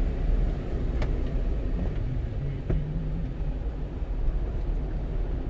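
Steady engine and road rumble inside the cab of a 1-ton truck driving along, with a couple of faint clicks.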